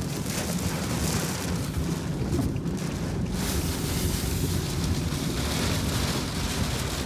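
Strong storm wind gusting and buffeting the microphone, a steady low rumbling rush with swells in strength.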